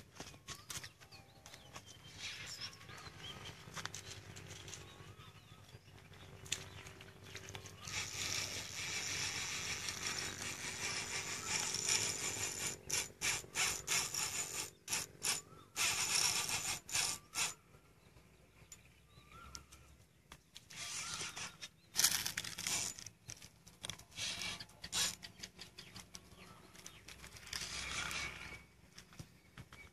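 Fishing reel drag buzzing as a hooked fish pulls line off against the bent rod: one long run about a third of the way in, then shorter broken spurts.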